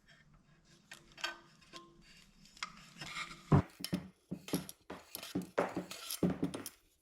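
Small metal parts clinking and knocking as a bolt and fittings are handled on the light's housing: a scatter of light clicks, with the loudest knock about three and a half seconds in.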